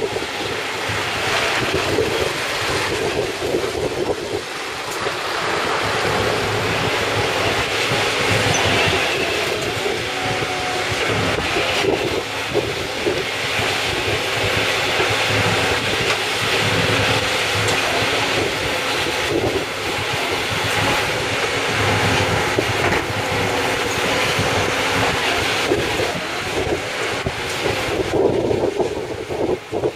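Mobile scrap-tyre shredder and wheeled excavator working together: a steady, loud din of diesel engines and the shredder's drive, with rumbling and irregular clanking as tyres are fed in and torn apart. Near the end the higher hiss of the machinery drops away.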